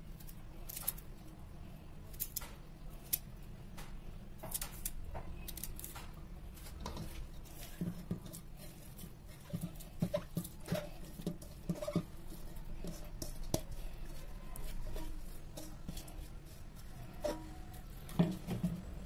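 Scattered small clicks, scrapes and soft taps of hand food preparation. A knife slices ginger into a glass jar of chopped watermelon, then soft taps and thumps follow as chopped watermelon goes in from a steel bowl and is pressed down by hand.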